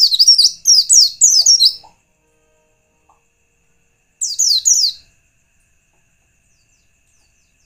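White-eye (pleci) singing a rapid twittering song of high, down-slurred notes: one run lasting about two seconds, then a shorter one about four seconds in, after which it stops. It is a lure call meant to set other white-eyes singing.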